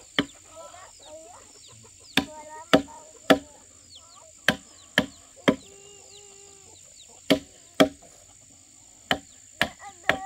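Hammer striking a steel chisel into a hardwood beam, cutting a mortise: about a dozen sharp knocks, irregular, often in twos or threes about half a second apart.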